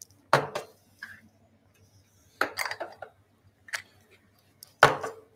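Bar tools clinking as a cocktail is mixed: a jigger and a cocktail shaker are knocked and set down on the bar. About six sharp clinks with short ringing, three of them louder.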